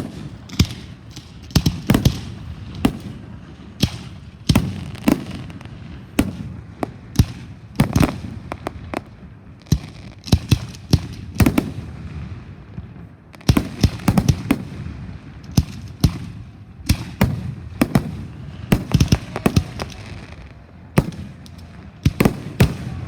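Fireworks going off: a dense, irregular string of sharp bangs and cracks over a steady low rumble, with a brief lull about midway.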